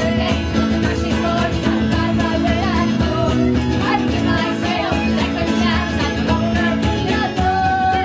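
A band playing a song live, with electric guitars, fiddle and keyboard under several voices singing together.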